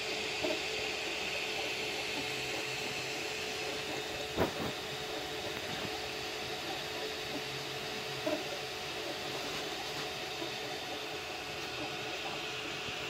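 Anycubic Kobra Max 3D printer running mid-print: a steady fan hiss over a steady hum, with one sharp click about four and a half seconds in.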